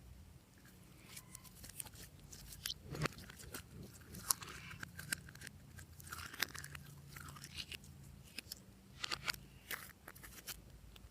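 Hands squishing and kneading glossy slime: a quick irregular run of sticky pops and crackles, busiest from about two seconds in to near the end.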